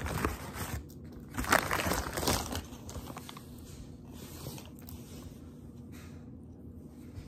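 Gift bag and wrapping rustling and crinkling as items are pulled out. Loudest in two bursts in the first two and a half seconds, then fainter handling.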